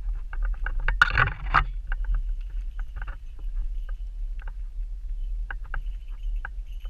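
WiFi interference in a GoPro Hero4's microphone: a steady low throbbing hum with irregular popping clicks, and a louder crackle about a second in. The owner blames the WiFi antenna sitting next to the microphone, and suspects a slack joint in its shielding.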